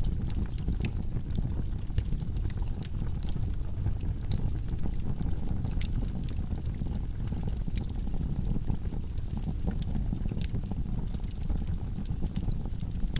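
Wood logs burning in a fireplace: a steady low rumble of flames with frequent, irregular sharp crackles and pops.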